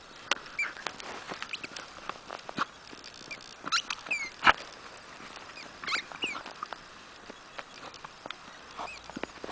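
Jack Russell terrier playing with a ball in snow: scattered crunches and taps of paws and ball in the snow, with short high squeaks now and then. One sharp knock about four and a half seconds in is the loudest sound.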